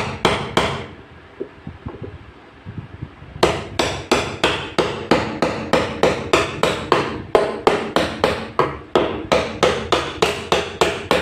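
Repeated hammer blows on part of a Bosch front-load washing machine's drum assembly, about three strikes a second. After the first second the blows pause for a couple of seconds, with only a few light taps, then resume steadily.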